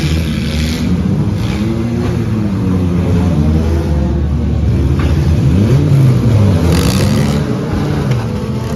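Several four-cylinder demolition derby cars' engines running at once, revving up and down in overlapping rising and falling pitches.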